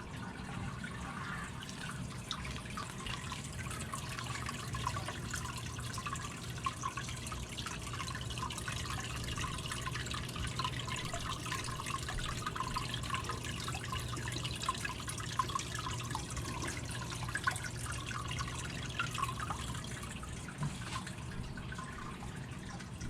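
Water in a home fish tank trickling and splashing steadily, the way a running aquarium filter sounds, with a faint low hum underneath.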